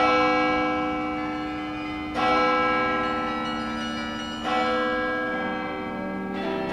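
Soundtrack music: three slow, ringing bell-like strikes about two seconds apart, each dying away, with a lower held note coming in near the end.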